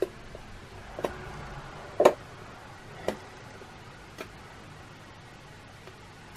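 Sharp single clicks repeating about once a second, the loudest about two seconds in, from a freshly powered Raspberry Pi and USB Wi-Fi adapter setup. The cause of the clicking is unknown and worries the builder.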